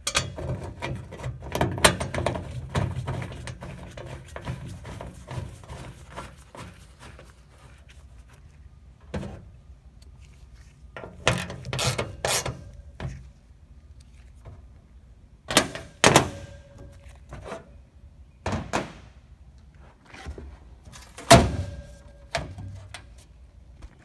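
Socket ratchet and metal hand tools working on a fastener: a dense run of ratchet clicks and rattling, then several separate metallic knocks and clinks, the loudest two leaving a short ring.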